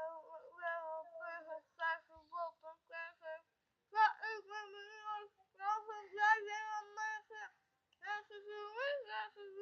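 A girl singing a song unaccompanied in phrases with long held notes, her mouth full of sunflower seeds.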